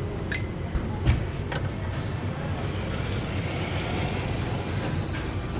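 Miniature shinkansen sushi-delivery train at a conveyor-sushi restaurant running along its rail lane, over a steady low rumble. A few sharp clicks come in the first two seconds.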